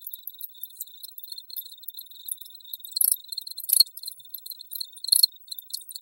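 Crickets chirping at night in a steady, high-pitched pulsing chorus, with a few louder sharp bursts about three, four and five seconds in.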